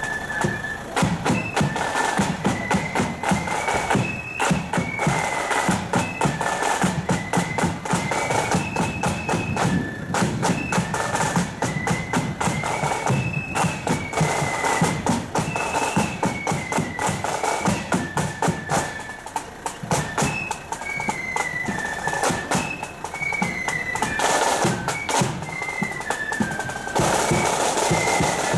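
A marching flute band playing a march tune: flutes carry a stepping melody over rapid, steady drumming.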